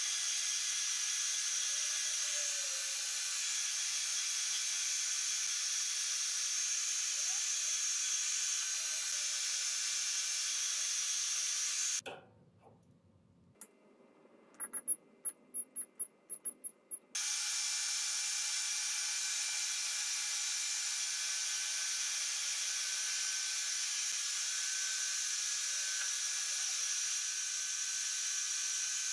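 Metal lathe running, turning a metal bar with a steady hissing cutting noise. About halfway through the machine sound drops away and a lathe digital readout's keypad gives a quick run of about eight short high beeps as its buttons are pressed, after which the lathe noise returns.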